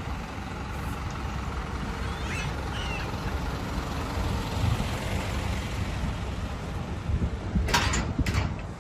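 A small cab-over service truck, loaded with portable toilets and a waste tank, has its engine running as it drives slowly past close by. A few sharp knocks sound near the end.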